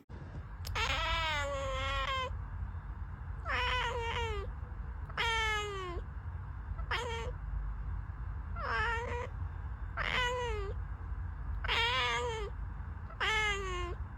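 A domestic cat meowing repeatedly, about eight drawn-out meows spaced a second or so apart, their pitch sagging at the end of each call. A steady low rumble runs underneath.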